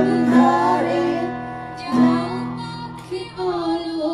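Acoustic guitar strummed, its chords ringing on, with a chord struck near the start and again about two seconds in, under a voice singing a slow melody.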